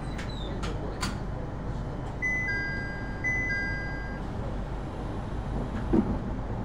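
An electronic two-tone chime sounds twice in a row, each a high tone joined by a slightly lower one, over a steady low hum. A few sharp clicks come in the first second, and there is a short thump near the end.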